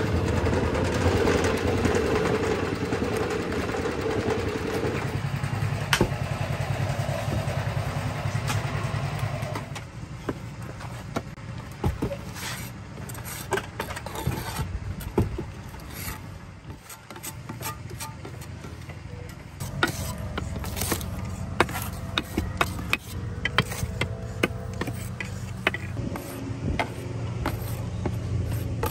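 A mortar mixer's engine runs steadily while its paddles churn wet mortar in the drum. After about ten seconds it gives way to a scatter of sharp clicks and taps, trowel and mortar work on concrete roof tiles, with a low motor drone coming back in the background for the last third.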